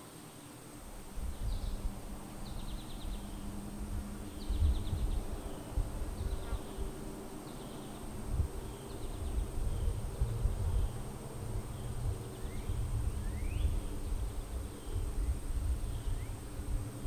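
Outdoor woodland ambience: a steady high insect drone with repeated short chirps and a couple of rising calls, over a low, uneven rumble that starts about a second in.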